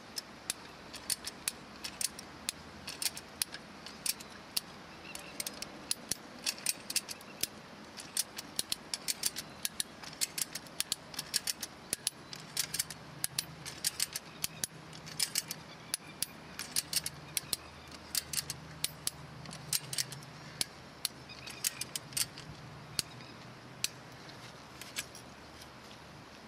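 Strainrite XT1 ratchet wire strainer being cranked by its ratchet handle. The pawl clicks over the ratchet teeth in quick runs of clicks, one run per stroke, as the fence wire winds onto the spool and is tensioned.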